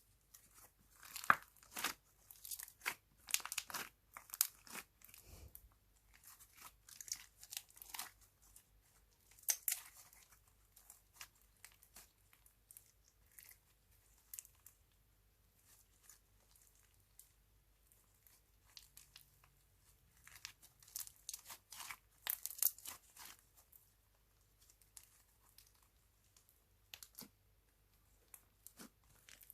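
Hands working slime mixed with clay, giving scattered sticky crackles and tearing pops in uneven clusters, with a sparser stretch in the middle.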